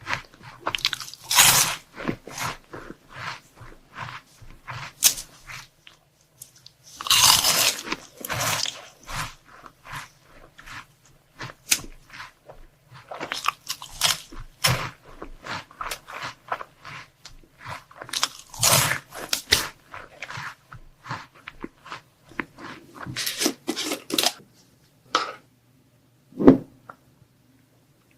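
Close-miked biting and chewing of crunchy chocolate sweets: a run of sharp crunches with a few loud bites, then a single dull knock near the end.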